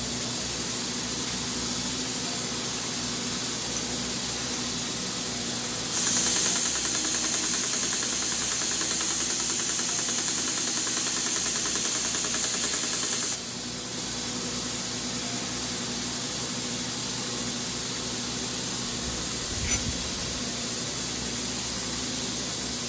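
Belt sander running steadily, its motor humming under a constant hiss. For about seven seconds in the middle the hiss turns louder and brighter as a brass trumpet valve tube is sanded on the abrasive belt.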